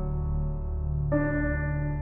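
Slow ambient background music: a steady low drone under long held notes, with a new chord coming in about a second in.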